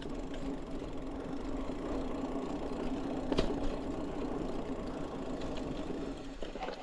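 Mountain bike rolling along a dirt forest singletrack, its knobby tyres giving a steady buzzing hum over the rattle of the bike, with a sharp knock about halfway through. The hum dies away near the end.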